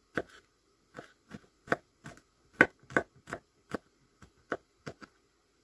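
Kitchen knife chopping garlic on a wooden cutting board: about a dozen sharp knocks, two or three a second, uneven in strength.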